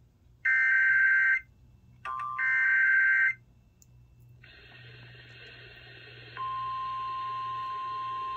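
Emergency Alert System SAME header: two loud, harsh, buzzy data bursts of about a second each. Radio hiss follows, and about six seconds in a steady single-pitch alarm tone starts, the NOAA Weather Radio warning tone that comes before a severe thunderstorm warning.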